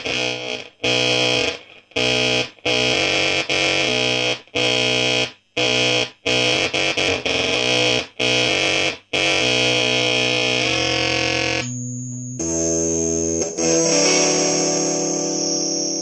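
Electric guitar played through a homemade sample-rate-reducer stutter fuzz, a circuit based on the Catalinbread Heliope, with the sound repeatedly cut into short stuttering bursts. About ten seconds in it gives way to held fuzzy notes, with a thin high whine over them near the end.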